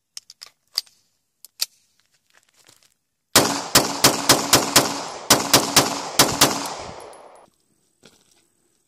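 Beretta 92FS 9mm pistol: a few sharp metallic clicks as it is handled and readied, then about a dozen shots fired fast, roughly five a second in two quick strings with a short break between, with an echo that dies away after the last shot.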